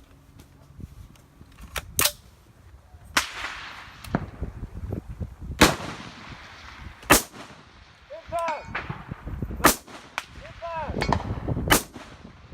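A series of about seven rifle shots at uneven intervals, some followed by a rolling echo that fades over a second or so.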